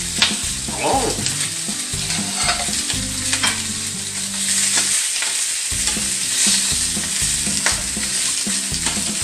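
Sausages sizzling in a hot frying pan, with a few sharp clicks of metal tongs against the pan as they are turned.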